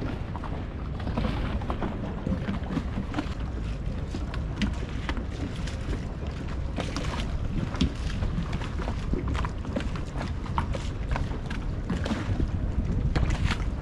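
Waterfront ambience: wind rumbling on the microphone over water lapping around moored gondolas and their pilings, with scattered light knocks and clicks.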